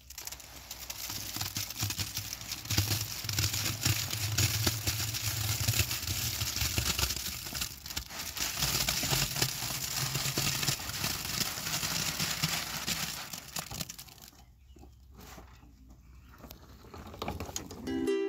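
A wheelbarrow full of wet concrete is rolled over rocky dirt and tipped, with the concrete sliding out of the tray into a pier hole. It makes a steady, rough crackling and scraping noise that falls away about three-quarters through.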